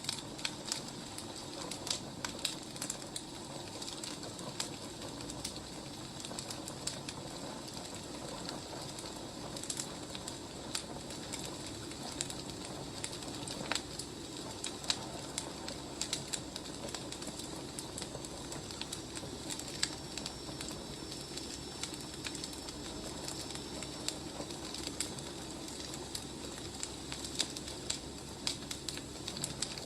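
A wood fire crackling: irregular sharp pops and snaps over a steady low rushing hiss.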